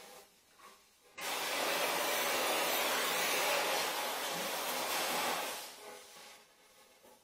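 Donmet 132A micro gas welding torch flame hissing steadily while welding a steel pipe. The hiss starts suddenly about a second in and fades away near the end.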